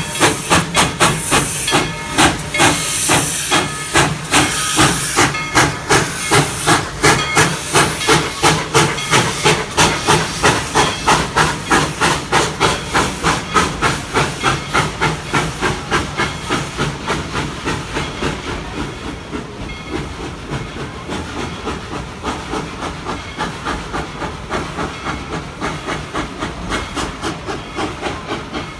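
Narrow-gauge steam locomotive No. 190 pulling away with its train, exhaust chuffing in a steady rhythm with steam hissing. The chuffs fade gradually through the second half as the train moves off.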